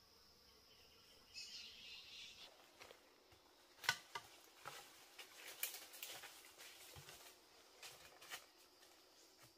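Quiet forest ambience: a faint, steady high drone like insects, with a short chirping burst about one and a half seconds in. From about three seconds to near the end come scattered sharp snaps and crackles, like twigs and dry leaves being disturbed in the undergrowth, the loudest about four seconds in.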